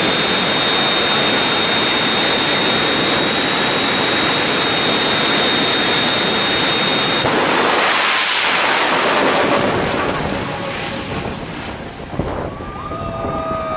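Jet dragster's turbine engine running hard at the starting line, with a steady high whine over the roar. About seven seconds in the whine stops and a louder blast comes as the car launches, then the sound fades as it runs away down the track.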